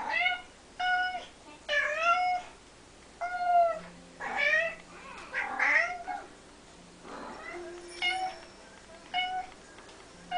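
Domestic tabby cat crying with a sock held in its mouth: about eight drawn-out meows, roughly one a second, then after a short pause two quieter ones.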